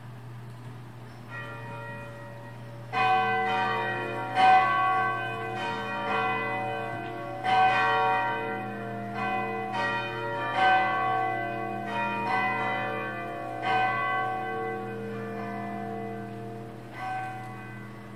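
Bells struck in an uneven sequence: about a dozen strikes starting a few seconds in, each ringing on and overlapping the next, over a steady low hum.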